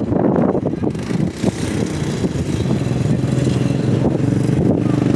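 ATV engine running as it is ridden, its pitch holding fairly steady.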